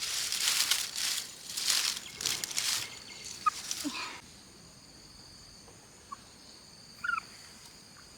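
Rustling in repeated bursts for about four seconds, then a few short chicken calls over a steady high-pitched hum.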